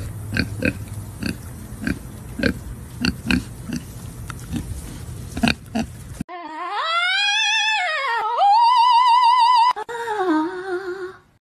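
A pig grunting again and again, roughly two grunts a second, over a steady hiss. After a cut about six seconds in, a small hairless dog howls in a long pitched tone that rises and falls, then holds with a quick wobble and drops lower near the end.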